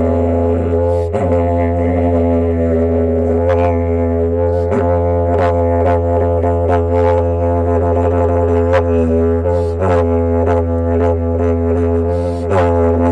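Didgeridoo played as a continuous low drone, with its overtones shifting and short rhythmic accents pulsing through it, a stronger one near the end.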